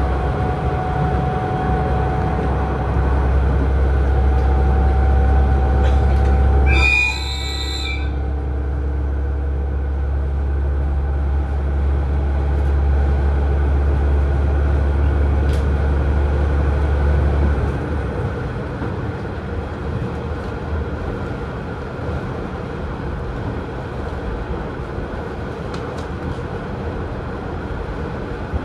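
KiHa 110 diesel railcar running along the line: a steady rail and running noise under a strong low engine drone, which drops away about eighteen seconds in. About seven seconds in there is a brief high-pitched squeal, and the overall level steps down at the same moment.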